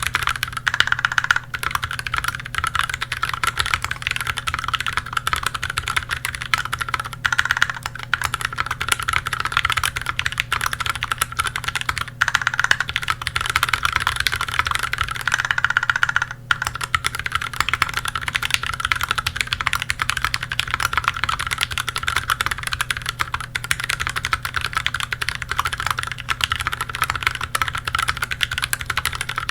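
Continuous fast typing on a KBDFans Tofu HHKB mechanical keyboard with lubed Gateron Milky Brown tactile switches, an aluminum plate and GMK keycaps: a dense, unbroken run of keystroke clacks with a short break about 16 seconds in.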